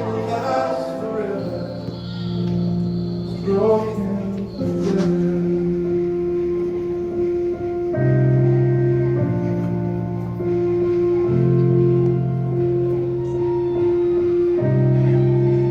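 Slow ballad music: long, sustained keyboard chords that change every second or two. A voice is heard briefly in the first few seconds.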